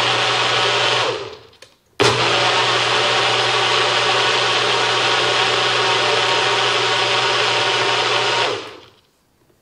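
Personal bullet-style blender, cup pressed down on the motor base, blending a liquid flan mix of milk, eggs and condensed milk. The motor runs loud and steady and stops about a second in, winding down. It starts again at full speed about two seconds in and runs until it winds down near the end.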